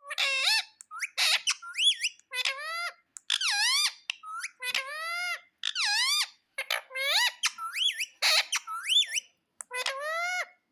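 Ringneck parrot calling over and over: a quick run of short, shrill squawks that bend up and down in pitch, with a few harsher screeches among them.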